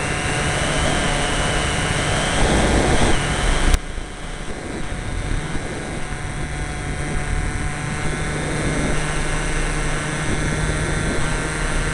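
RC trainer model airplane's engine and propeller heard from an onboard camera in flight, running steadily with rushing wind, its pitch wavering as the plane flies. A sharp click about four seconds in, after which the engine runs a little quieter.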